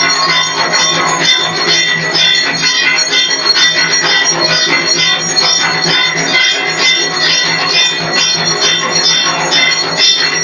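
Metal bells ringing continuously in a fast, even rhythm, as an accompaniment to a Hindu arati lamp-offering, with steady ringing tones sustained over the strikes.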